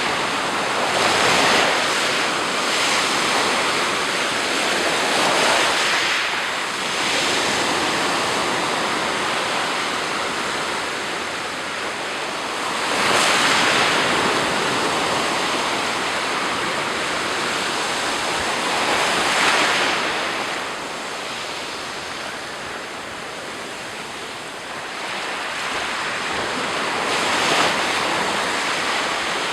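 Sea surf: waves breaking and washing onto the shore, the wash swelling and easing every few seconds, with stronger breakers about a third and two thirds of the way through.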